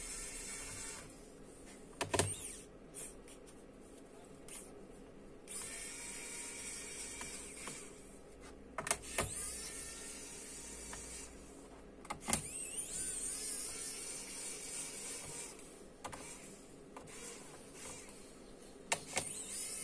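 Small electric screwdriver whirring in several bursts of a few seconds each, backing out the screws on the underside of a laptop. There are a few sharp clicks between the bursts.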